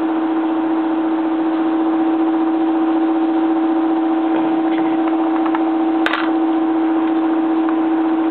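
Steady machine hum on one constant pitch with a few overtones, from a motor or fan running at the workbench. A sharp click about six seconds in.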